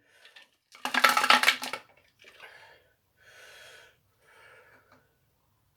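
Hard tools and small parts clattering on a workbench about a second in, followed by three quieter spells of scraping and rustling as parts are handled.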